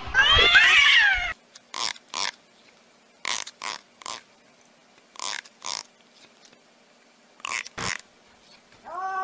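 A cat lets out one wavering, falling meow, then makes a string of short breathy bursts, mostly in pairs, about nine in all.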